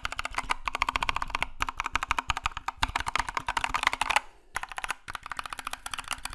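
Keys of an Epomaker AK84S mechanical keyboard being typed on rapidly, a fast run of clacks, pausing briefly about four seconds in.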